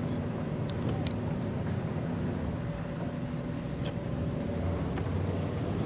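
Steady low engine drone, a motor running nearby, with a few faint clicks over it.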